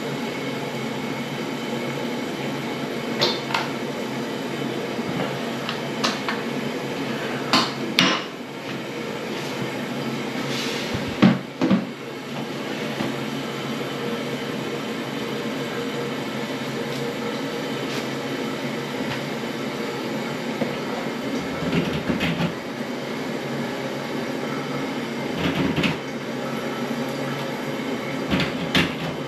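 Steady background noise with scattered knocks and clatters as the air drain cleaner and the toilet are handled. The loudest knock comes about eleven seconds in.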